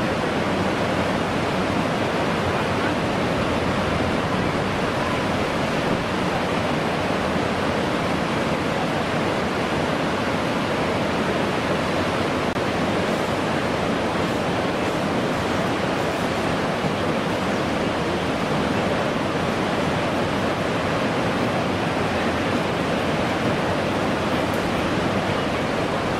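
Whitewater rapids rushing steadily and loudly through a canoe slalom course.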